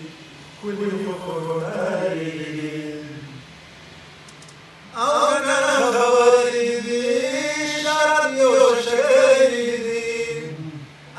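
A man reciting Pashto poetry in a chanted, sung style, holding long wavering notes. The voice drops low about three and a half seconds in, then comes back louder with a long drawn-out phrase.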